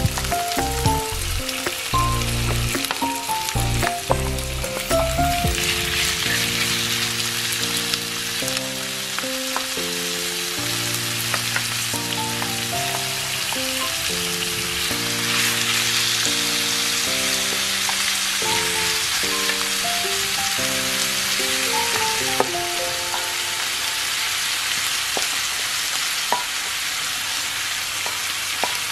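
Beef strips, onions and garlic sizzling as they fry in oil in a nonstick frying pan, the sizzle swelling twice. Background music with a soft melody plays over it.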